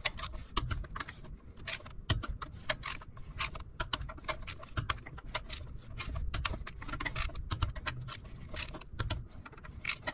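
Ratchet and click-type torque wrench with a 5/8 socket working bolts at the centre of a dually rear wheel hub: many short metallic clicks in irregular runs as the bolts are tightened in a crisscross pattern to 55 foot-pounds.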